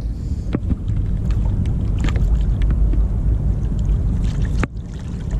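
Steady low wind rumble on the microphone with water lapping against a small boat's hull, and a few faint clicks and knocks.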